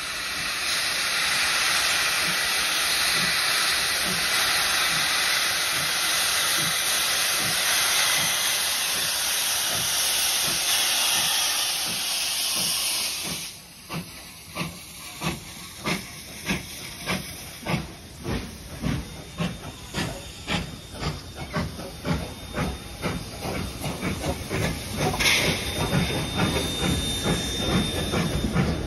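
Steam locomotives R766 and 5917, running double-headed, hiss steadily as they vent steam from the leading engine's cylinder cocks. About halfway through, the hiss stops abruptly, and the train's carriages roll past with an even clickety-clack of wheels over rail joints that gradually quickens.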